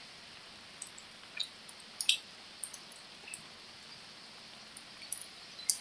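Light rain falling: a faint steady hiss with scattered short, irregular ticks of drops, the sharpest about two seconds in and near the end.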